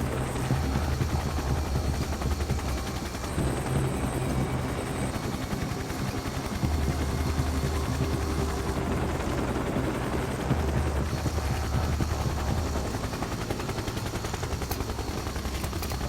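Helicopter hovering, its rotor chopping steadily with a deep engine rumble. A few sharp clicks sound near the end.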